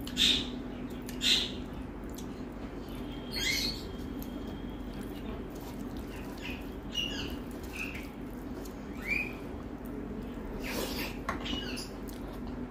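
A stainless steel bowl is scraped and tapped as ridge gourd in poppy-seed paste is emptied onto rice, with two short rasps in the first second or so. Then come close-miked wet squelches of fingers mixing rice with the curry, and squeaky eating smacks every few seconds. A steady low hum runs underneath.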